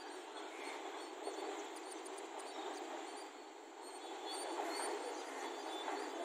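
Small birds chirping in short, repeated high calls over a steady outdoor hiss.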